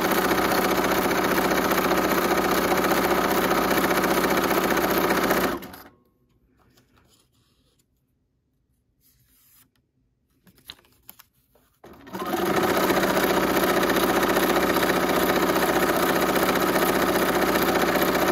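Bernina electric sewing machine running at speed, sewing a zigzag stitch through strips of paper. It runs for about six seconds, stops for about six seconds with only faint handling sounds, then runs again for about six seconds and stops right at the end.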